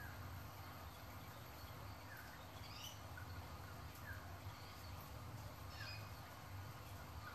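Faint, scattered short high squeaks from three-day-old guinea pig pups, over a low steady hum.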